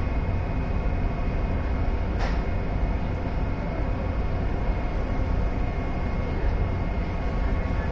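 Steady engine drone and low rumble heard on board a Hakone pirate-ship sightseeing cruiser under way, with a brief click about two seconds in.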